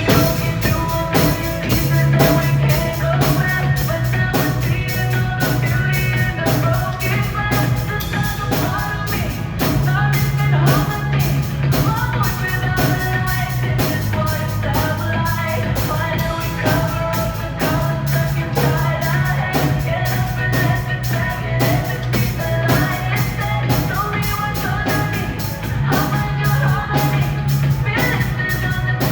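Live pop-rock band music: a drum kit keeps a steady beat under bass and melody instruments.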